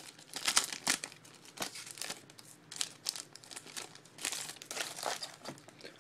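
Foil wrapper of a trading card pack crinkling in quick, uneven rustles as it is torn open and handled. The rustling dies down about half a second before the end.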